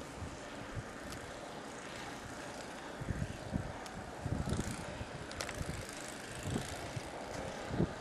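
Wind buffeting the camera microphone in irregular low rumbling gusts over a steady hiss, with a sharp click about five and a half seconds in.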